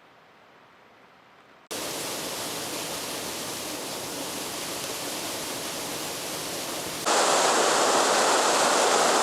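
Steady rushing of falling water. It starts abruptly after a faint hush and jumps abruptly louder about seven seconds in.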